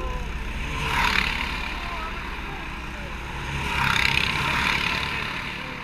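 Racing kart engine running, with two louder swells of hissing noise about a second in and about four seconds in.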